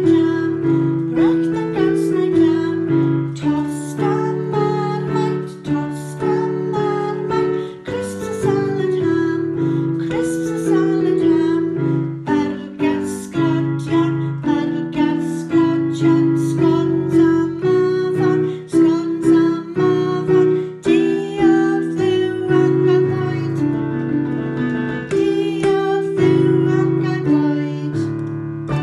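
A keyboard plays chords in a steady rhythm while a woman sings a Welsh children's song along with it.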